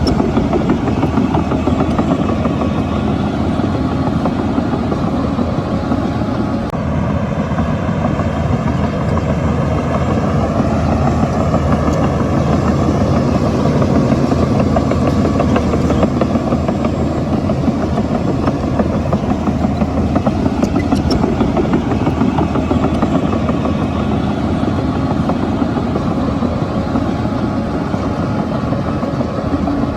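Shantui crawler bulldozer's diesel engine running steadily at work, its note bending up and down a little between about seven and fourteen seconds in.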